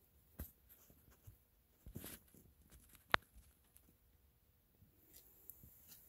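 Faint taps, rustles and light knocks of handling in a quiet small room, with one sharp click about three seconds in.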